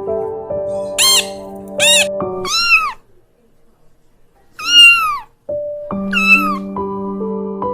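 Background music with sustained notes, over which an animal gives five short cries that each arch up and fall in pitch. The music drops out for a couple of seconds near the middle, leaving one cry on its own.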